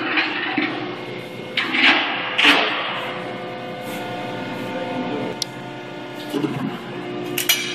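Hydraulic pump of a 350-ton Niagara press brake running with a steady multi-tone hum while a steel sheet is bent. A few loud hissing, rattling bursts come about two seconds in, and sharp knocks come near the end.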